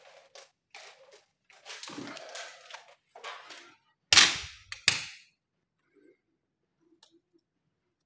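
Handling noise from a whole spiky durian being turned on a wire stand: rustling and scraping of the husk, then two sharp knocks about four and five seconds in, the first the loudest, as the fruit is lifted off the stand.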